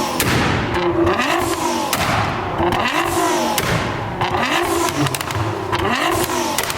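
Nissan GT-R's twin-turbo V6 being blipped repeatedly, the revs rising and falling about once a second. Sharp pops and crackles come from the exhaust as it shoots flames.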